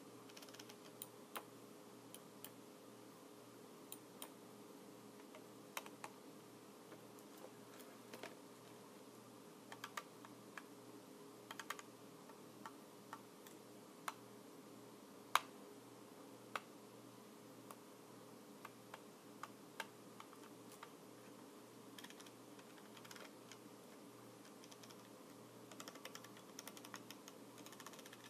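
Computer keyboard keys being tapped and pressed slowly, in sparse irregular clicks, with a quick run of keystrokes near the end. A faint steady hum sits underneath.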